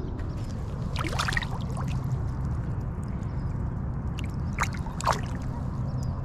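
Lake water splashing as a largemouth bass is lowered by hand into the water and released: a splash about a second in and another, sharper one near five seconds, over a steady low rumble.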